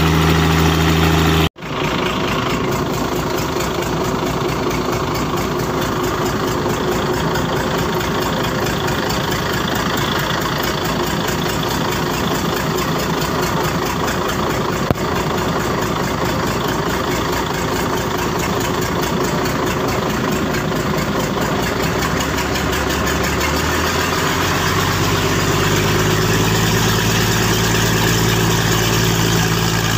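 Mitsubishi 6D16 inline-six diesel engine running steadily. The sound breaks off for a moment about a second and a half in, and its low tones grow stronger near the end.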